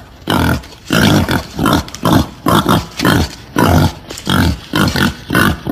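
Female wild boar grunting in a rapid, even series, about two to three short grunts a second: the sow's call to boars that hunters play as a lure.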